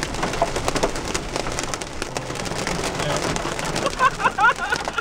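Heavy rain hitting a car's windshield and roof, heard from inside the car as a dense steady patter of drops. About four seconds in, a brief wavering high-pitched sound rises over it.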